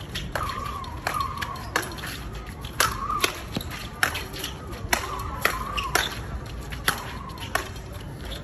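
Speedball rackets striking the ball on its tether in a fast doubles rally: about ten sharp smacks, one every half-second to second, with short squeaks between hits.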